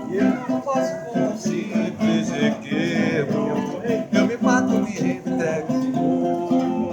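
Acoustic guitar music: plucked and strummed strings playing continuously, with some singing.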